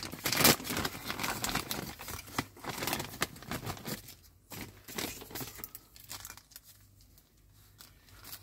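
Clear plastic bag crinkling and crackling as hands pull it open and handle the small model parts inside. The crinkling is busiest for the first four seconds, then thins out and falls nearly quiet near the end.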